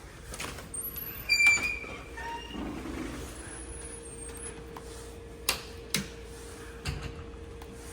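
Several sharp knocks and clicks over a steady low hum, the loudest about one and a half seconds in with a brief high metallic ringing, then three more single knocks near the end.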